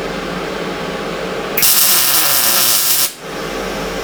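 A steady workshop hum, with a loud, even hiss that starts about a second and a half in and cuts off sharply about a second and a half later.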